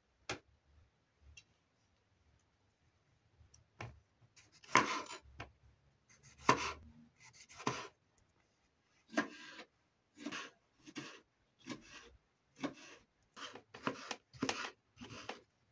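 Kitchen knife cutting through tomatoes onto a plastic cutting board. A few isolated knife taps at first, then a run of cuts about one a second from a third of the way in, the loudest two close together.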